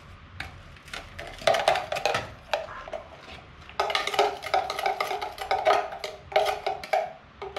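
Metal spoon clinking and scraping against a small glass cup as it chops clumps of baking soda mixed with sugar. The strikes come in quick runs, each ringing briefly, and grow thicker about four seconds in.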